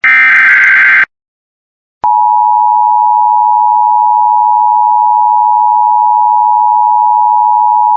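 Emergency Alert System tornado warning tones: the last one-second burst of the SAME data header, two alternating high tones, ends about a second in. After a second of silence the steady two-tone EAS attention signal starts and holds.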